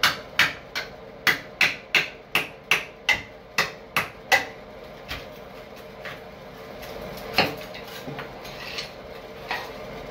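Hammer striking a chisel in quick, even blows, about three a second, chipping old ceramic tile and mortar off a shower floor. The blows stop about four and a half seconds in, leaving only a few lighter, scattered knocks.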